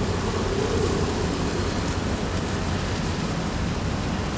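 Steady rushing wind noise on the microphone over open harbour ambience, with a faint steady hum in the first second and a half.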